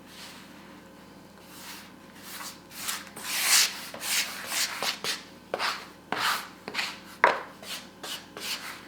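Hands kneading crumbly butter-and-flour shortcrust dough on a work surface: a run of rubbing, scraping strokes, about two a second, with a few sharp knocks, starting a few seconds in.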